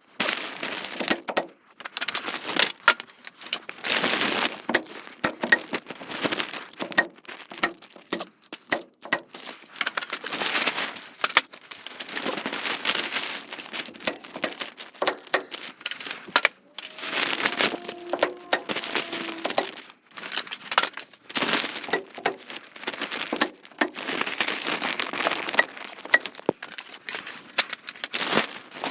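Plastic vapor-barrier sheeting crinkling and rustling as it is handled and pulled into place, with many sharp clicks from a manual stapler.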